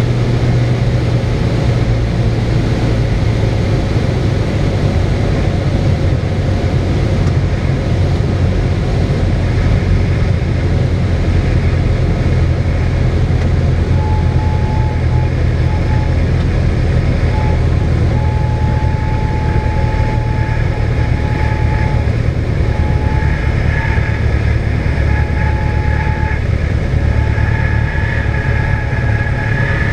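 Cessna 172's engine idling, heard from inside the cockpit as a steady low drone with air noise, throttled back for landing and rollout. From about halfway in, an on-and-off high tone joins it.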